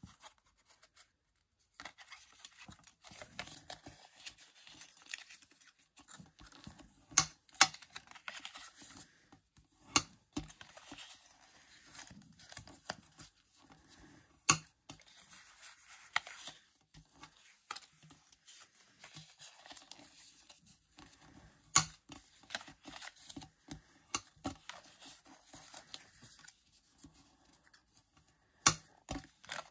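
Cardstock being folded and creased by hand with a bone folder: paper rustling and scraping, with a few sharp taps along the way.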